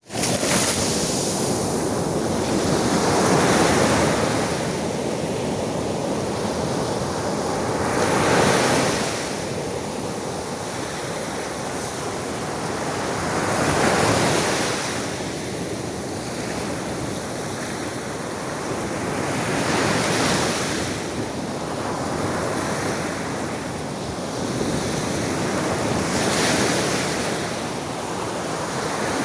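Aegean Sea waves washing in, each swelling to a surge about every five to six seconds over a steady hiss of surf.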